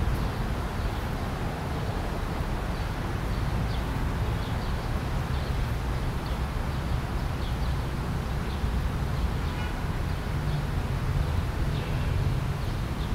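Steady wind outdoors: a low rumble of wind on the microphone under an even rush of air through leafy trees, with faint short high chirps now and then.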